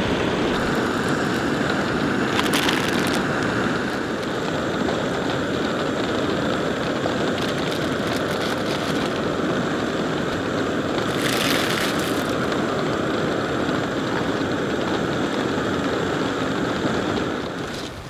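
Isobutane canister camp stove burner running with a steady rushing hiss under a pot, with two brief rustles about two seconds in and again near the middle; the hiss drops away just before the end.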